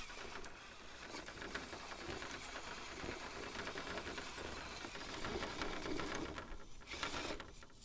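Axial SCX10.3 RC rock crawler's brushed motor and gear drivetrain whirring at crawling speed, with many small ticks throughout.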